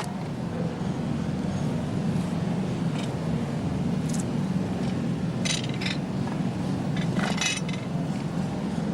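Light metallic clinks and rattles of iron parts being handled: one about four seconds in, a cluster in the middle and another near the end, over a steady low hum.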